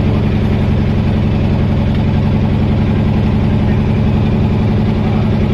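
A boat's engine running steadily at an even pitch.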